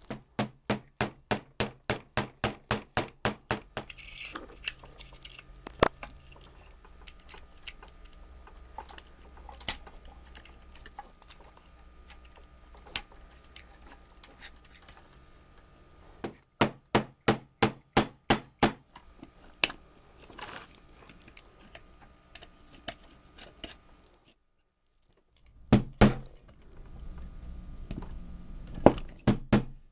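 Sharp, evenly repeated clicks, about four a second, in two runs with scattered single clicks between: a small plastic gear being cut down with a hand tool.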